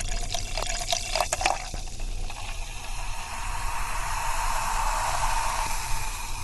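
Soda being poured into a glass: a splashing pour for about the first second and a half, then a steady hiss of fizzing, popping bubbles.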